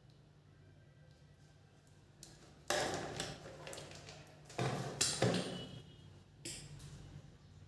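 A handful of short knocks and clatters, as of small tools and parts being handled and set down on a repair bench, over a faint steady low hum.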